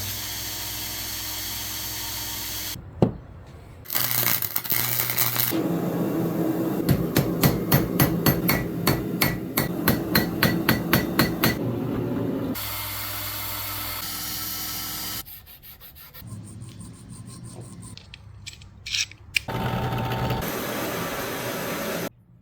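Montage of forging sounds: steel being hammered in a fast run of sharp, ringing blows, about three a second, between stretches of steady shop noise.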